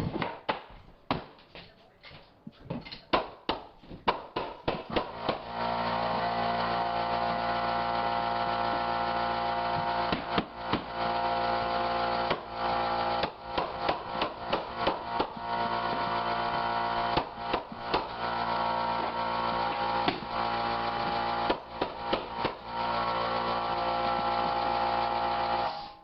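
Air compressor running with a steady hum that starts about five seconds in and cuts off near the end, under a stream of sharp, irregular knocks and bangs of hardwood floorboards being driven and fastened down.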